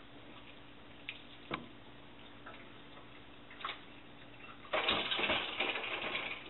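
A few light clicks of a metal kettle and utensils, then about a second and a half of loud splashing and clatter in a stainless steel kitchen sink as a sea bream fillet, its skin just scalded with boiling water, is handled.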